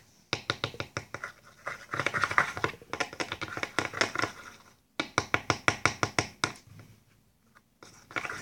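A thin brush stirring a melted lipstick mixture in a small plastic cream-jar lid: rapid clicking, scraping strokes about six a second. They break off briefly about five seconds in and stop about seven seconds in, with a few faint strokes near the end.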